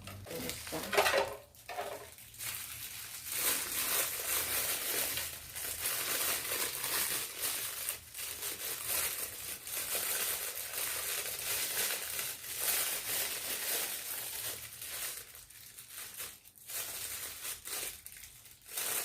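Packaging crinkling and rustling as it is handled and unwrapped, with a louder crackle about a second in.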